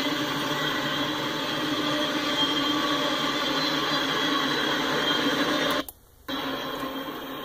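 Intermodal freight train's well cars rolling past, a steady rumble and hiss of steel wheels on rail. The sound drops out briefly for about half a second near six seconds in.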